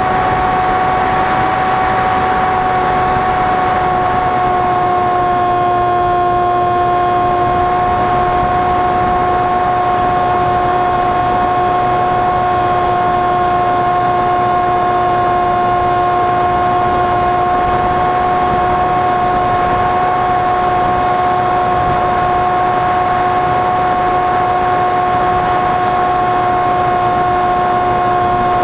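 Motor and propeller of a radio-controlled airplane, heard from its onboard camera during flight: a steady whine at a nearly constant pitch, over a rush of wind that is a little stronger in the first few seconds.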